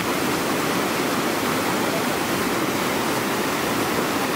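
Whitewater river rapids rushing steadily, a constant even noise of churning water.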